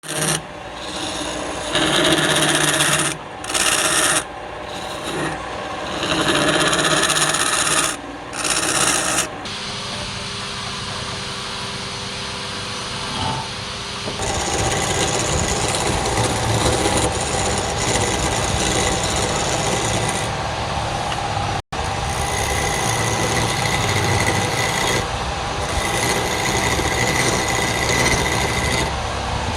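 Wood lathe spinning a workpiece while a turning tool or abrasive scrapes and rasps against the wood. For the first several seconds this comes in short strokes with brief gaps. After a quieter stretch where mostly the lathe's hum is heard, it settles into steady continuous rasping, cut off for an instant near the middle.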